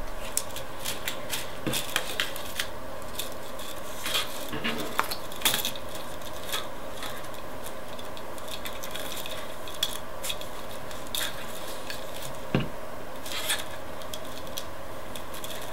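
Irregular light clicks and rustles of plastic drinking straws being pushed onto paper-clip joints and handled as a straw frame is put together, with one duller knock near the end. A faint steady hum runs underneath.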